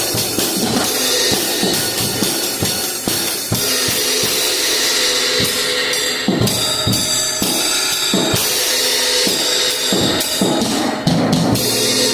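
Drum kit being played: bass drum hits under a continuous wash of cymbals.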